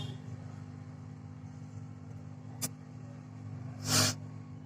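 Steady low electrical hum from bench equipment, with a single sharp click about two and a half seconds in and a short hissing, rubbing burst near the end.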